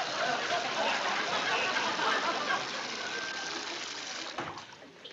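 Water running from a kitchen faucet into the sink in a steady stream, fading out about four and a half seconds in.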